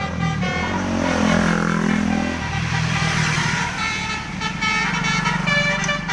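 A bus's basuri telolet horn playing a melody of changing notes, the notes coming short and quick in the second half. The bus engine runs underneath.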